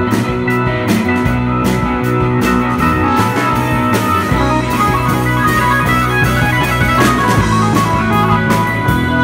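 Rock band playing live: a Stratocaster-style electric guitar plays over drums, with held notes running through a steady beat.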